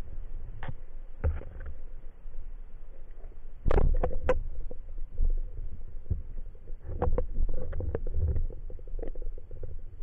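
Underwater noise heard through a camera housing: a low, muffled rumble of water movement with scattered clicks and knocks, the loudest cluster about four seconds in and more around seven to eight seconds.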